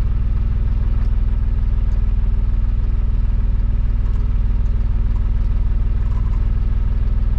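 Fendt Vario tractor's diesel engine running at a steady, unchanging note while the tractor drives in reverse.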